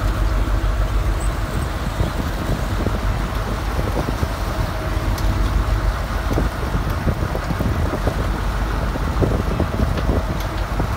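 Fishing boat's engine running steadily under way, with the wake churning and rushing behind the stern.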